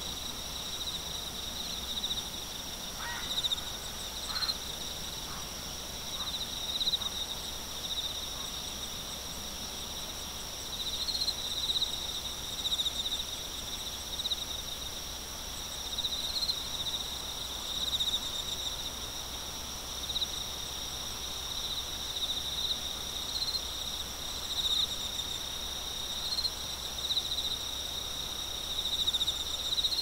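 Chorus of singing insects: a steady high-pitched shrill of overlapping trills, one of them swelling and fading about once a second. A few faint short chirps come a few seconds in.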